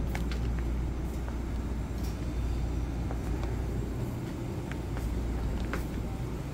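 Steady low hum of a convenience store's open-front refrigerated display cases, easing off a little about four seconds in, with scattered light clicks.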